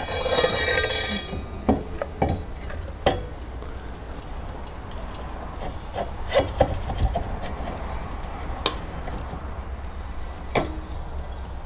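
Metal parts being handled as a motorcycle front fork tube goes back onto the bike: a rattling scrape lasting about a second at the start, then scattered knocks and clicks, over a steady low hum.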